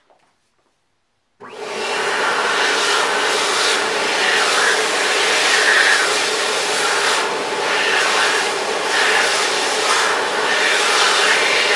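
Fast Dry Jet Air JA01 high-speed hand dryer switching on suddenly about a second and a half in as hands go under it, then blowing a loud, steady rush of air that wavers a little in strength.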